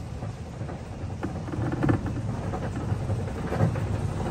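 Runaway Mine Train coaster cars running up the track: a steady low rumble with a few faint clanks.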